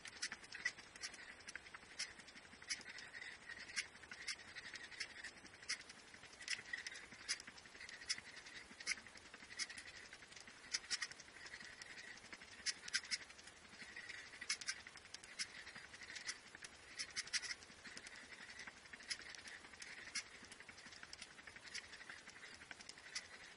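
Footfalls and breathing of a person running in place on a rug, played back five times faster than real time, so they come as a rapid, faint patter of clicks with a pulsing squeaky hiss.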